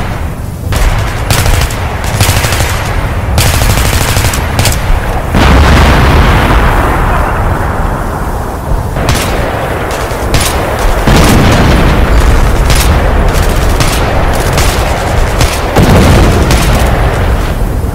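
Battle sounds: rapid gunfire in single shots and bursts, with heavy booming blasts about five, eleven and sixteen seconds in.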